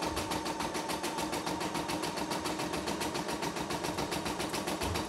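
CNY E960 computerised embroidery machine stitching steadily at 450 stitches per minute: an even, rapid needle ticking of about seven to eight stitches a second over the hum of its motor.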